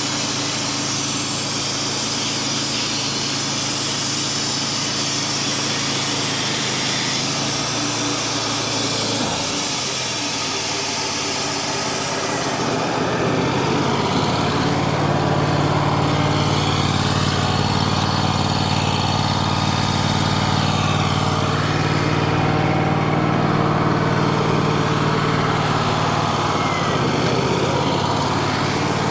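Wood-Mizer LT35HD portable sawmill running steadily on its engine. About twelve seconds in, a high hiss drops away and the engine's pitch settles lower and stronger.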